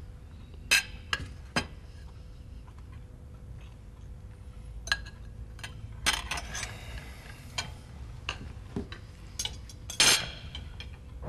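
Spoons and forks clinking and scraping on china plates as people eat. Scattered sharp clinks come a second or so apart, with a brief scrape about six seconds in and the loudest clink near the end. A steady low hum runs underneath.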